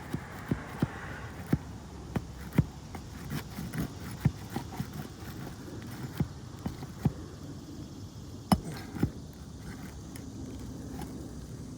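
Irregular sharp clicks and knocks of a metal hand tool prying roofing nails out from under brittle asphalt composition shingles, about a dozen strikes over nine seconds, two of them louder.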